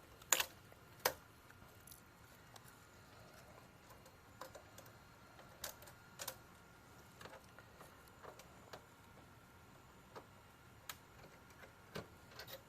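Scattered light clicks and ticks, a dozen or so at irregular intervals, from small tools and parts being handled on a repair bench.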